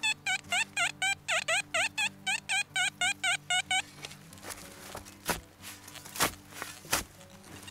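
A metal detector gives a fast run of about fifteen short beeps, about four a second, each dipping and rising in pitch, as it sounds off over a buried target. Then a shovel blade chops into the soil three times.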